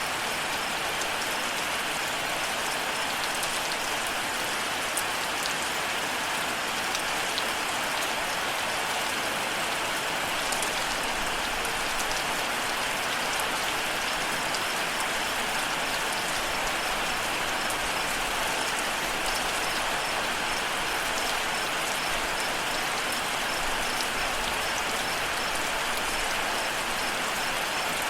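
Steady rain falling with scattered drop taps, and a faint cricket chirping in quick, even pulses.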